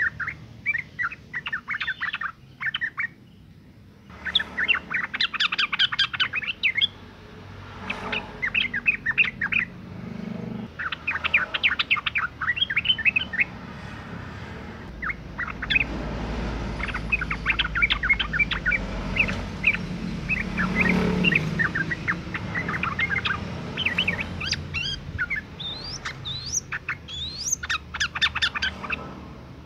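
Yellow-vented bulbul (trucukan) calling in bursts of rapid, chattering chirps, each run lasting a second or two with short pauses between. It is presented as a female in breeding condition calling to draw males into song. A low background rumble swells for a few seconds midway.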